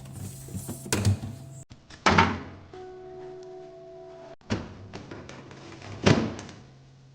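Knocks and thuds from a refrigerator door and plastic food containers being handled. There are four sharp knocks, the loudest about two seconds in and near the end, over a faint steady hum.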